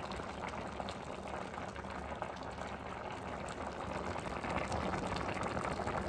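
A pot of meat and vegetable stew boiling in an aluminium pot, a steady bubbling with many small pops that grows slightly louder toward the end.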